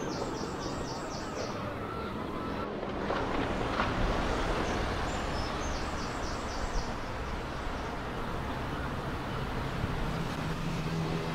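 Outdoor street ambience: a steady wash of traffic noise that swells once as a vehicle passes. A small bird sings a short run of quick, high repeated notes twice, near the start and about halfway through.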